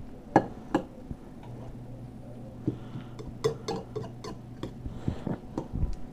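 Scattered light clicks and taps of a kitchen utensil on a ceramic dish and countertop as seasoning is mixed into fresh salsa, with a low steady hum through the middle.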